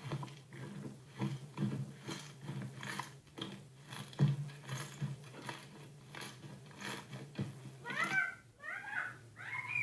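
A cat meowing three times near the end, each call bending up and down in pitch, after several seconds of soft, irregular clicking.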